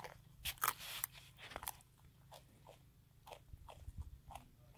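A wallaby biting and chewing a block of dry instant noodles: a run of irregular crisp crunches, loudest in the first couple of seconds, then fainter.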